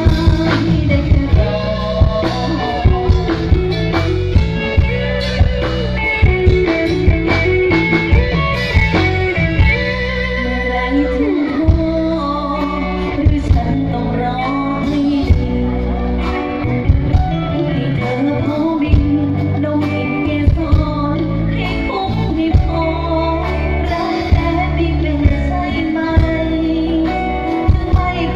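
Live band music played loud through a stage sound system: a singer over a steady drum-kit beat, with bass, electric guitar and keyboard.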